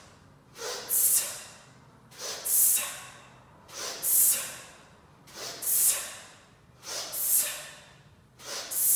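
A person doing kettlebell swings breathes in rhythm: a quick sniff in through the nose as the bell is hiked back, then a sharp hiss out through the teeth as they stand up into the plank. About six swings, one every second and a half or so. The hiss is a power breath that braces the abs for the swing.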